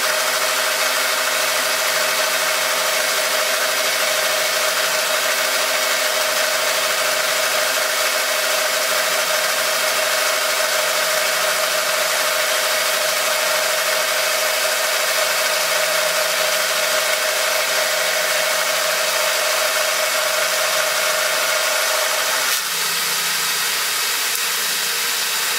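Milling machine running a roughing shell mill through a steel bar under power feed: a steady whirring cut with a constant tone over it. Near the end the tone drops away and the sound eases slightly.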